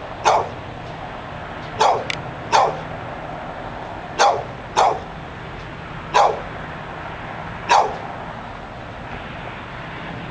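A dog barking loudly and persistently: about seven short, sharp barks, single or in quick pairs, one to two seconds apart, with a pause near the end.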